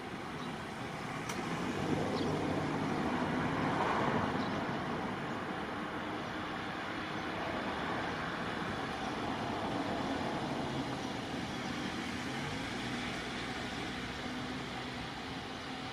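Steady rumble of distant vehicles, swelling between about two and five seconds in, then settling to a steady level.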